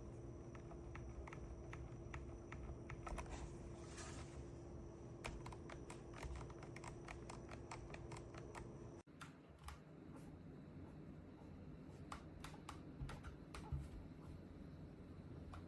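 Irregular light plastic clicking and tapping, like buttons being pressed in quick, uneven runs, with an abrupt cut about nine seconds in, after which the clicks come more sparsely.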